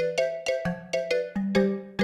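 Roland D-50 digital synthesizer playing a factory preset: a quick run of chords and notes over a moving bass line, about three or four a second. Each note starts sharply and dies away.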